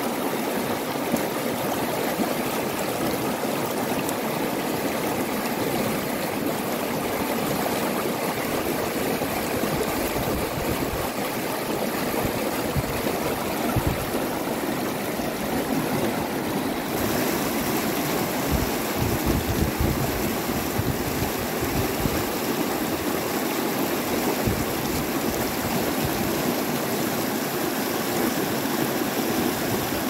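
Fast, shallow mountain river rushing over a stony bed in rapids: a steady rush of water, with a few brief low rumbles partway through.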